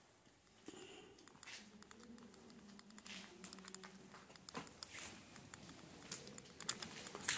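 Quiet, irregular light clicks and crackles, with a sharper click near the end.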